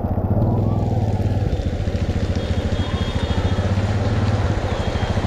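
A motor vehicle's engine running steadily with a fast, even low pulse, heard muffled with the treble cut off.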